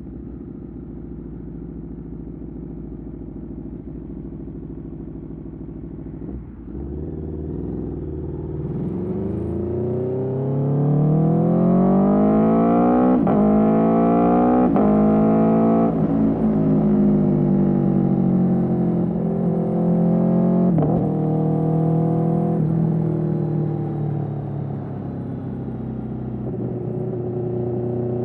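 Aprilia Tuono V4's V4 engine through an Austin Racing GP1R exhaust while riding. It runs steadily at low revs for several seconds, then accelerates hard with the pitch climbing and breaking at quick gear changes. It holds at speed with a few more shifts before settling to a lower, steady note near the end.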